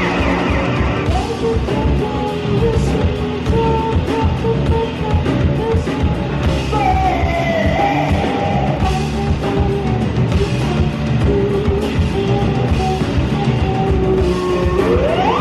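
Live band playing amplified music on drum kit, electric guitars and keyboards, with long held notes that slide in pitch and a steep upward glide near the end.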